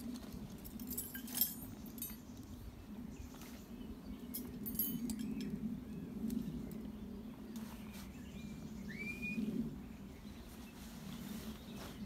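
Camping kit being unpacked and handled, with rustling and a few light metallic clinks. A single rising bird chirp comes about nine seconds in, over a steady low background noise.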